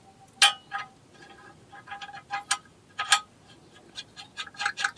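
Metal tools and car parts clinking and tapping against each other: a run of irregular sharp metallic clicks with a short ring, the loudest about half a second in and again around three seconds in.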